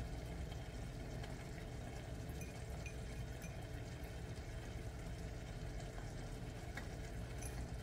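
Cream sauce simmering in a stainless steel pan on a gas burner, a faint steady bubbling, with a few light taps as grated Parmesan is spooned in.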